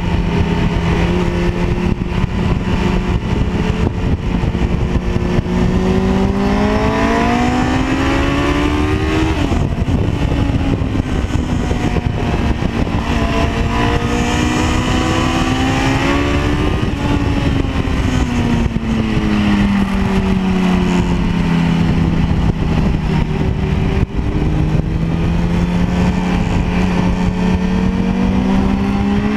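Honda CBR900RR's inline four-cylinder engine heard from on board while riding on track, with a constant rush of wind over it. The engine pitch holds steady, climbs, breaks briefly near ten seconds, climbs again, then falls away and climbs once more near the end.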